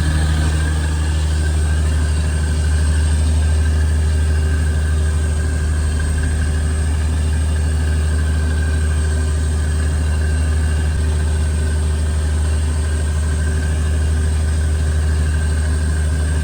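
Fishing boat's engine running at a steady speed, a constant low drone with no change in pitch.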